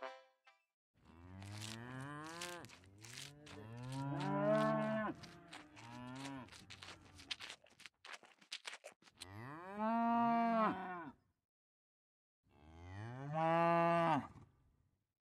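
Dairy cattle mooing: several overlapping moos with a run of sharp clicks among them, then two long single moos a couple of seconds apart.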